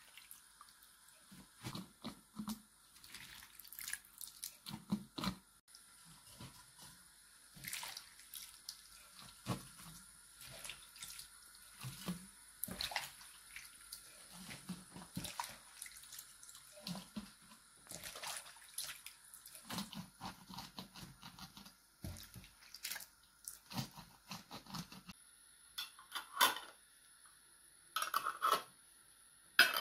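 Wet squelching and irregular soft clicks of a gloved hand squeezing and mixing shredded vegetable salad in its juice and packing it through a plastic funnel into glass jars. Near the end, two louder clacks about two seconds apart.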